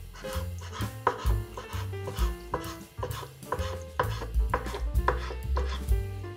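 Background music with held bass notes, over sharp knocks of a kitchen knife chopping boiled meat on a wooden cutting board.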